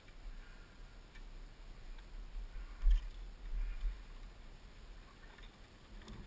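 Small clicks and scuffs of hands working at a fallen dirt bike tangled in barbed wire, with one sharp knock about three seconds in and a few softer knocks just after, over a low rumble on the microphone.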